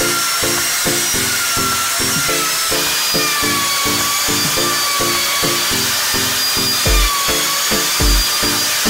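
Bosch POF 1200 AE plunge router running as it planes the end grain of an oak trunk section, a steady high whine that wavers and dips slightly in pitch under load, over a hiss. Background music with a steady beat plays over it.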